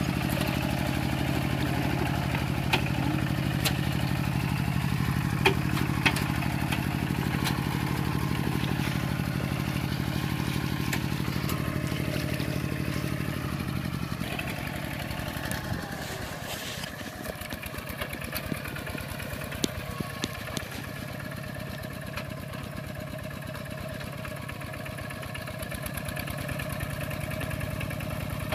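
Kubota single-cylinder diesel engine of a two-wheel walking tractor running steadily under load as it pulls cage wheels and a harrow through paddy mud, with sharp metallic clanks now and then. About halfway through the engine becomes quieter and its separate firing beats stand out more.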